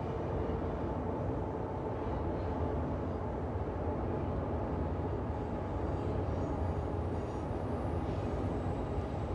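Steady low rumble of city ambience, mostly deep noise with a faint hum, even throughout with no distinct events.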